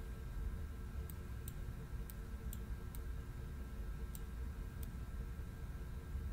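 Light, irregularly spaced ticks of a stylus tapping on a tablet screen while handwriting, about seven of them, over a steady low hum.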